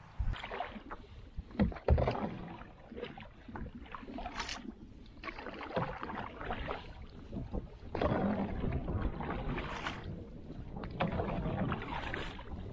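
Paddle strokes in an open canoe: water swishes and splashes off the paddle blade every couple of seconds, with water lapping along the hull. A sharp knock about two seconds in.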